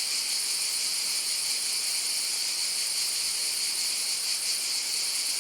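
A chorus of cicadas buzzing in a steady, dense, high-pitched drone.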